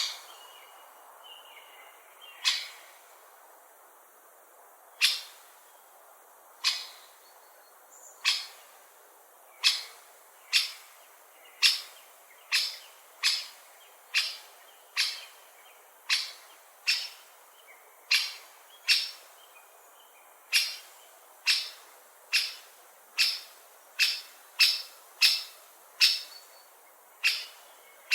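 Great spotted woodpecker calling: short, sharp single call notes repeated at irregular intervals. They are a couple of seconds apart at first and come faster, about one a second or more, from roughly a third of the way in.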